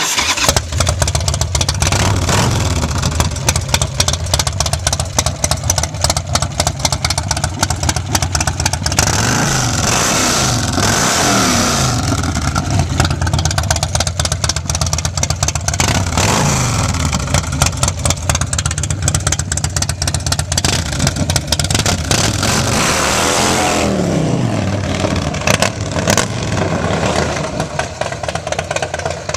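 Bagger motorcycle engine starting up and running loud through a two-into-one exhaust with a power-cone baffle, with a rapid, lumpy exhaust beat. The throttle is blipped several times, the revs rising and falling about a third of the way in, again near the middle, and once more later on.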